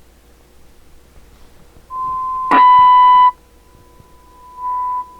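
A steady, high single-pitch test tone from the Cobra 148GTL CB radio's speaker, cutting in and out as the squelch is checked. It starts about two seconds in, jumps after a click to a much louder, distorted stretch for under a second, drops back to faint, and comes on loud again briefly near the end.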